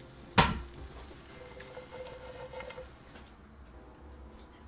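A single sharp clack of kitchenware about half a second in, then only faint low background noise.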